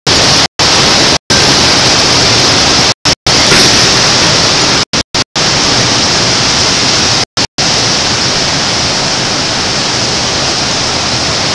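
Hurricane-force wind gust with driving rain: a loud, steady rushing hiss blasting the camcorder microphone. It is broken by about ten split-second dropouts to total silence.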